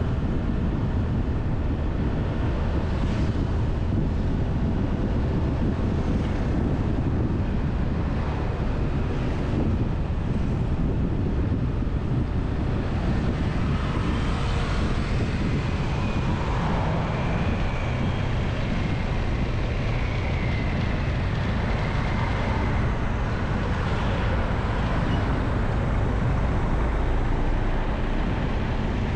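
Steady wind noise rumbling on the microphone of a camera riding on a moving scooter, over road and traffic noise from passing motorbikes and cars.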